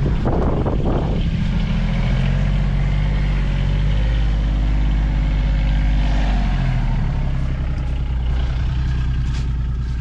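John Deere Gator utility vehicle's diesel engine running, revving up about a second and a half in as it drives off and settling back down near the end. A brief clatter comes near the start.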